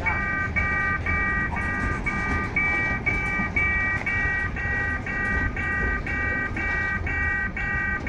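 Level-crossing warning signal sounding a repeating multi-tone electronic bell, a bit more than twice a second, over the low rumble and clatter of loaded freight wagons rolling past.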